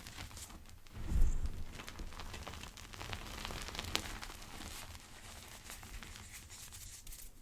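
Gym chalk pebbles being crushed, a soft crumbling crackle throughout, with one heavier crunch about a second in.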